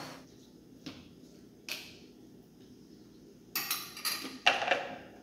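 Countertop blender motor cutting off, then sparse clicks and knocks of the plastic blender jar, its lid and kitchenware being handled, coming thicker and louder in the last couple of seconds.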